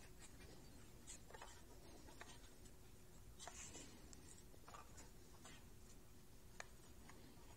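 Near silence: a few faint ticks and rubs as a balsa wing rib and a small right-angle triangle are handled against a paper plan, over a faint steady hum.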